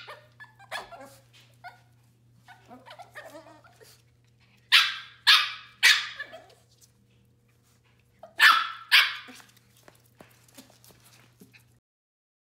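Two West Highland White Terrier puppies barking as they play-fight: sharp high barks, three in quick succession about five seconds in and two more near nine seconds, with quieter calls between.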